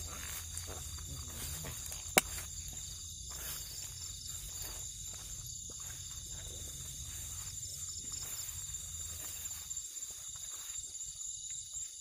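Night chorus of crickets and other insects, a steady high-pitched trilling with one pulsing trill among them. A single sharp click about two seconds in, and scattered rustles near the end.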